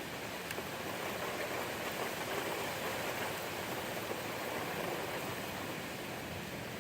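Thunderstorm rain and wind: a steady rushing hiss that swells a little in the middle.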